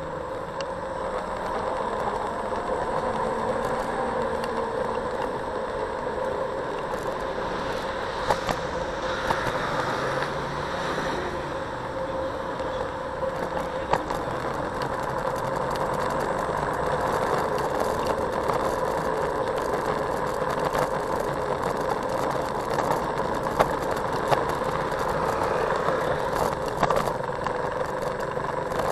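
Ride noise of a Xiaomi Mijia M365 electric scooter picked up by a camera mounted on it: a steady whine from its hub motor over road and wind noise, with a few sharp knocks.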